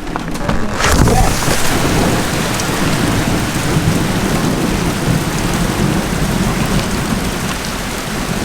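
Heavy rain pouring steadily, with a rumble of thunder that swells in about a second in and rolls on underneath the rain.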